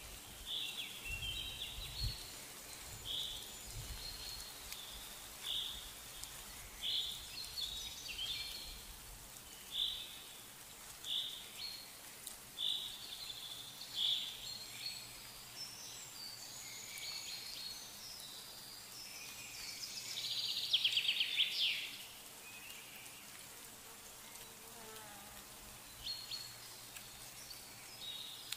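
High-pitched calls from a small wild creature: short notes repeated about once a second, then a rapid buzzing trill a little past the middle, which is the loudest sound.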